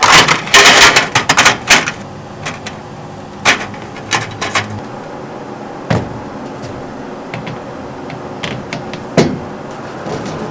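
Rapid clattering of a slatted roll-up tabletop being laid onto a folding camp-table frame, followed by scattered single knocks and clacks as a small folding stand is set up and a mesh top is placed on it.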